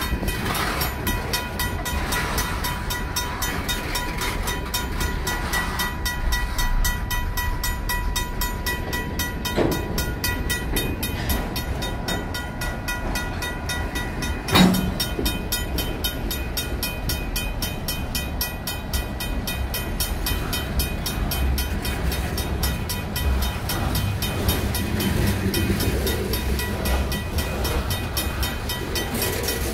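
Freight train cars rolling past close by, wheels rumbling and clacking over the rails, while the grade crossing's RACO mechanical bell keeps ringing. One sharp clank about halfway through is the loudest moment.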